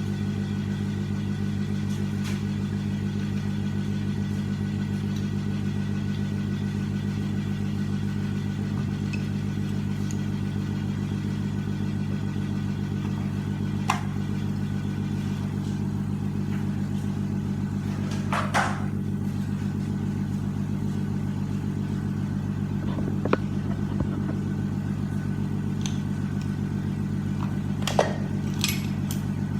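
Steady low mechanical drone, like an engine or motor running, with a few light clicks and clinks scattered through it.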